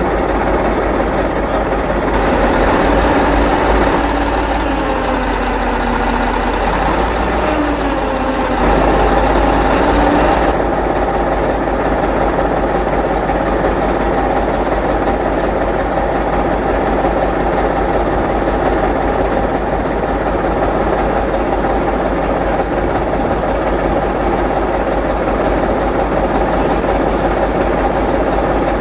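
Large truck engine running, its pitch rising and falling a few times in the first ten seconds before it settles to a steady idle.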